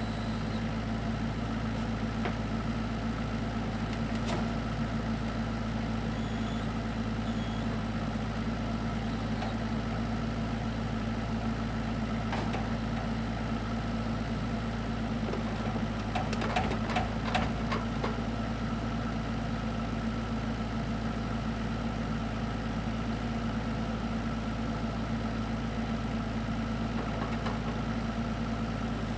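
Kubota KX121-3 mini excavator's diesel engine running steadily at idle, with a short run of clicks and clanks about two-thirds of the way through.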